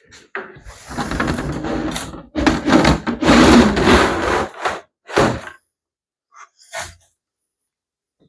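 Plastic roll guard gate of a Confer Plastics 7200 above-ground pool ladder rolling open after being unlocked, its slats clattering in two long pushes. Two short knocks follow.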